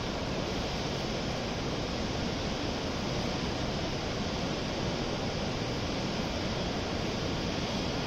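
Steady, even station platform ambience with no distinct events.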